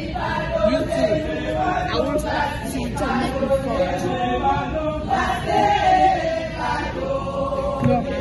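Church choir of women and men singing together, with several long held notes.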